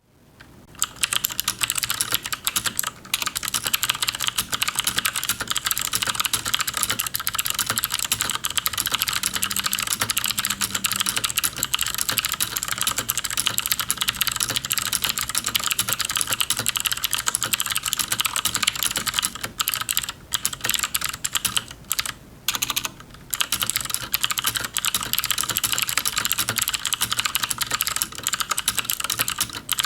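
Fast, continuous typing on a mechanical keyboard with clicky switches, a dense stream of sharp key clicks with a few brief pauses.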